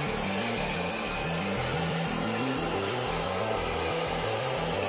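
Air plasma cutter torch on a CNC table hissing steadily as it cuts through sheet steel.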